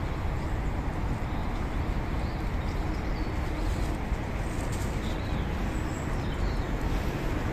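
Steady outdoor background rumble, with a few faint, short bird chirps now and then.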